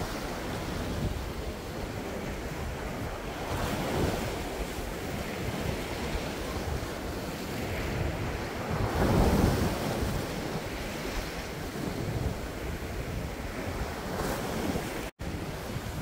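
Sea waves surging and breaking against a rocky shore, with wind buffeting the microphone. The biggest wave breaks about nine seconds in, and the sound cuts out for an instant near the end.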